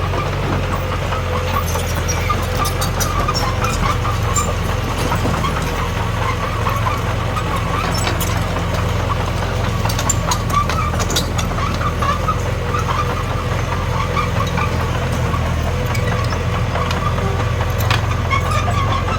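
D21P bulldozer's diesel engine running steadily as it works soil, with light clicks and clanks scattered through, a cluster of them about halfway and one near the end.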